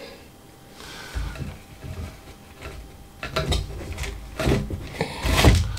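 Hands putting a bundle of cigars back into a wooden cigar box and handling the box: soft rustling, then a few wooden knocks and taps over the second half, the loudest a dull thud near the end.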